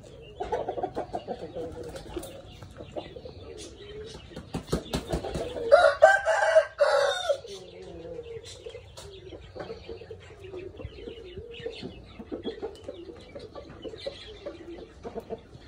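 Chickens clucking and calling, with a rooster giving one short crow about six seconds in, the loudest sound.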